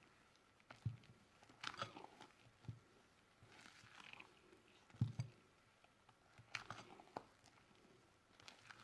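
Spatula folding thick cupcake batter in a glass bowl: faint, irregular wet squelches and scrapes, with small knocks against the glass and a dull thump about five seconds in.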